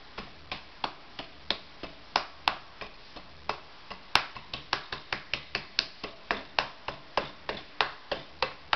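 White vinegar glugging out of an upturned plastic bottle into another plastic bottle: a run of short pops as air bubbles up into the emptying bottle. The pops come unevenly at first, then settle to about three or four a second.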